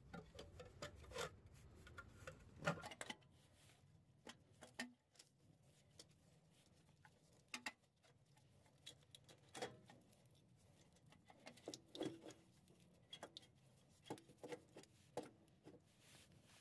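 Faint, scattered light knocks, clicks and rubbing of a starter motor's metal housing being worked out of its mounting.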